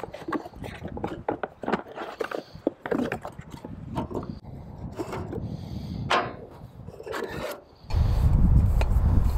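Unboxing a stove cook-pot set on a wooden table: rustling of the cardboard box, light knocks and clicks as the pot is set down and the burner is pulled out of it, with rubbing and scraping of the parts. About eight seconds in, a loud low rumble sets in suddenly and carries on.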